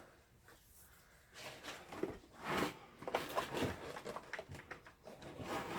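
Light handling noise on a workbench: irregular small clicks, taps and rustling as objects are picked up and set down, starting about a second and a half in after a near-silent start.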